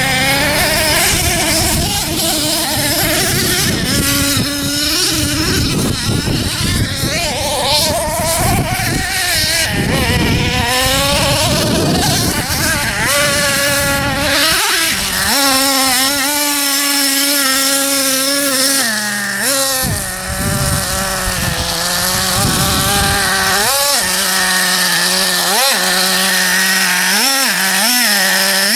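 Nitro RC truck engine revving high, its pitch rising and falling with the throttle, holding a steady note for a few seconds midway and giving several quick throttle blips near the end.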